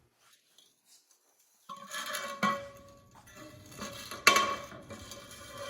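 Clinking and knocking of metal parts on a glass lathe chuck as they are handled, with a lingering ringing tone and two sharper knocks. The first second and a half is nearly silent.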